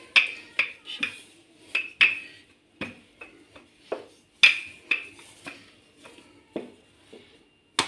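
Wooden rolling pin rolling out dough on a stone countertop: about a dozen sharp, irregular knocks and clacks as it is pushed back and forth, roughly one or two a second.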